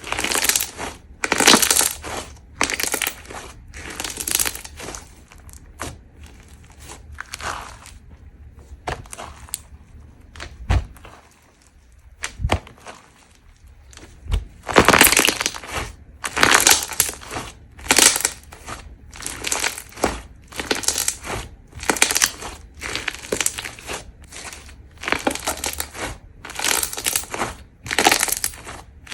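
Crunch slime being squeezed and pressed by hand, crackling and popping in repeated bursts. The bursts come about once a second, with a quieter stretch in the middle that holds a few soft low thumps.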